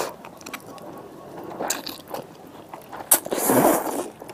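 A person eating instant noodles: soft mouth clicks and chewing, a short slurp near two seconds in, then a longer, louder slurp of noodles around three and a half seconds in.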